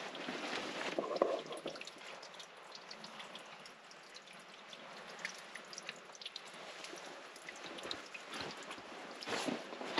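Water trickling and dripping, with many small irregular drips and a louder pour about a second in.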